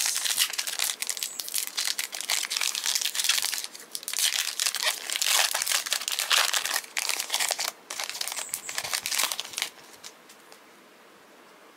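A trading-card pack wrapper being torn open and crinkled by hand, in several bursts of crackling with brief pauses, stopping about ten seconds in.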